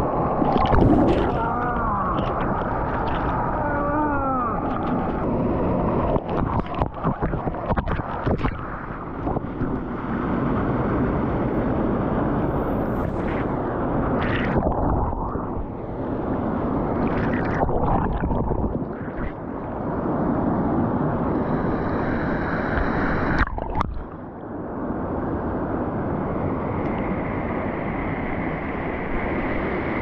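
Water gurgling and splashing close to the microphone over a steady rush of water, uneven, with many knocks and short dips.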